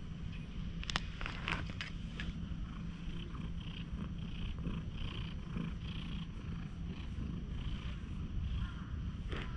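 Tabby cat purring steadily while being stroked, with a few faint clicks about a second in.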